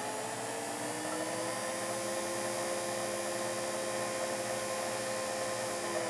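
Small electric motor of the model-train tester running with a steady whine of several pitches over a hiss, the pitch edging up in the first second and then holding. The noise is the tester's motor; the geared micro motor turning the arm is very quiet.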